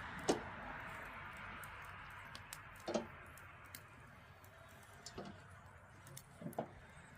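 Occasional metal knocks that ring briefly from the swinging rings of a gimbal rotisserie grill: one near the start, one about three seconds in, then two close together near the end. They sound over a hiss that fades, with scattered faint high ticks.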